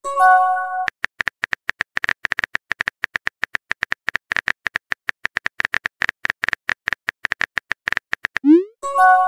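Texting-app sound effects: a short bright multi-note message chime, then rapid keyboard typing clicks, several a second, as the next message is typed. Near the end a quick rising whoosh leads into the same chime again.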